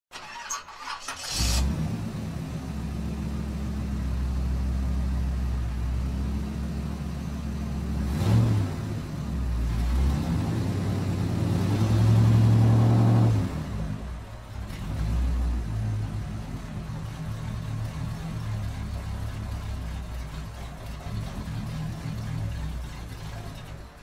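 Car engine starting about a second in, then running steadily, revved up a few times between about eight and fifteen seconds in and settling back each time.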